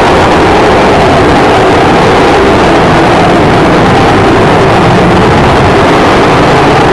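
Avro Vulcan bomber's four Rolls-Royce Olympus turbojets, a loud, steady jet roar as the aircraft banks through its display overhead.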